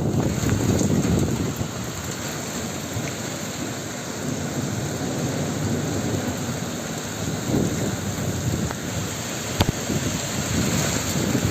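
Rain falling steadily, with low gusts of wind buffeting the microphone, strongest in the first second or so, and one sharp tap near the end.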